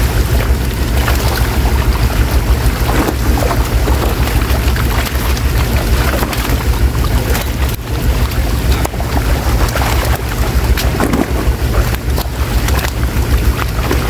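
Wind buffeting the microphone in a constant low rumble, over irregular splashing and slapping of many fish thrashing in shallow water inside a drawn seine net as they are handled into plastic baskets.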